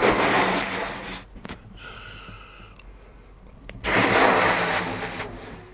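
Someone blowing up a rubber balloon: two long, forceful breaths blown into it, one at the start and one about four seconds in.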